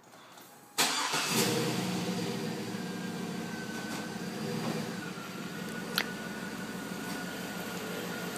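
Full-size SUV's engine started: a brief crank, catching within about half a second, then idling steadily with a faint whine. The idle settles a little lower about five seconds in, and there is a single sharp click about a second later.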